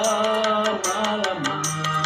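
Dangdut music, a melody line gliding over low sustained notes and quick, regular drum hits.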